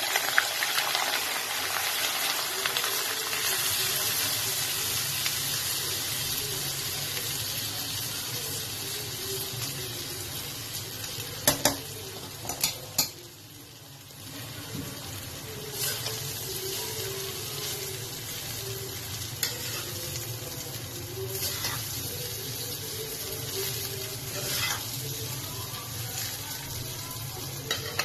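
Boiled rice sizzling in hot ghee with cloves and cardamom as it is stirred in the pot. A few sharp clacks of a spoon against the pot come about halfway through.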